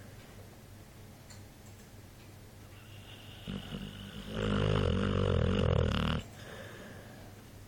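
A sleeping pet snoring: quiet breathing for the first few seconds, then one long snore of about two seconds just past the middle.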